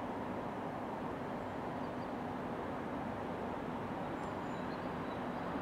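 Steady outdoor background rumble and hiss with a faint steady hum, unchanging in level; a few faint high chirps about four seconds in.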